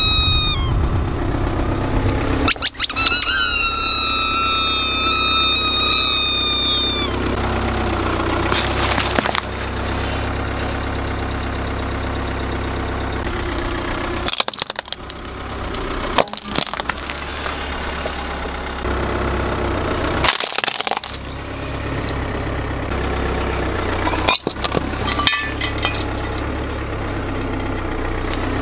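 A car's engine hums at low revs while a tyre rolls over objects on asphalt. In the first several seconds rubber shoes under the wheel give out long squeaks that fall in pitch. They are followed by a few short, sharp cracks, the first of them from a clear glass figurine breaking.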